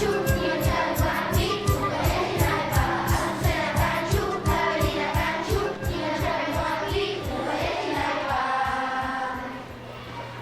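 Recorded music with several voices singing together over a fast, steady drum beat of about four strokes a second; the beat stops about eight seconds in and the music fades out under a held low note.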